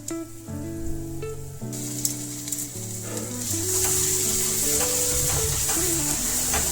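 Spice masala sizzling as it fries in hot oil in a pan, starting about two seconds in and growing louder; the masala has fried long enough to release its oil.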